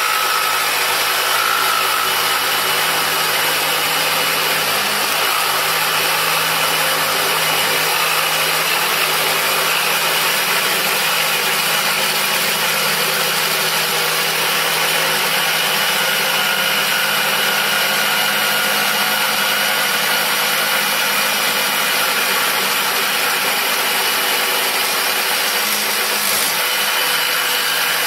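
Black+Decker corded jigsaw running steadily, its blade cutting through a thin plywood sheet without pause.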